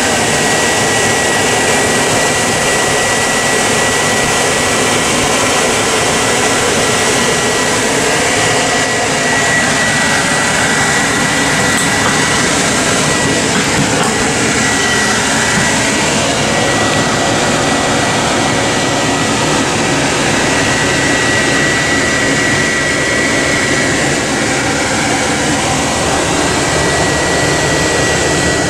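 Steady loud whooshing of the ambulance's running machinery heard inside the patient compartment, with a constant high whine on top.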